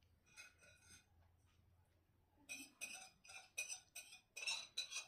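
Cutlery clinking against a plate while eating: a few faint clinks, then a quick run of light, ringing clinks in the second half.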